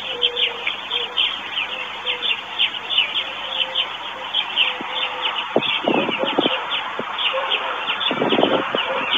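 Small birds chirping steadily in quick, short notes. Two short bursts of crackling, about six and eight seconds in, as a white stork pokes at the sticks of its nest.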